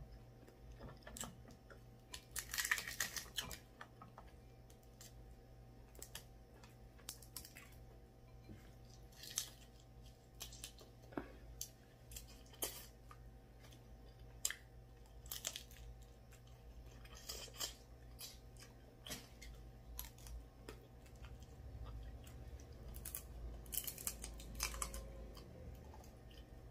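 Close-miked eating: chewing with irregular sharp cracks and snaps of seafood shell being peeled and bitten, a loud cluster of them about three seconds in. A steady low hum runs underneath.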